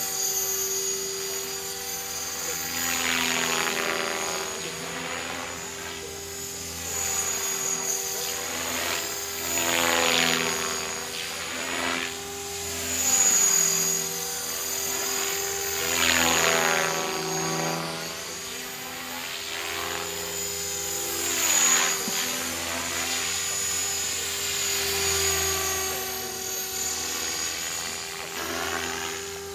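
Align T-Rex 500 electric RC helicopter in aerobatic flight: a steady rotor and motor whine that swells and fades several times as it swoops closer and away, with a sweeping, phasing sound as it passes.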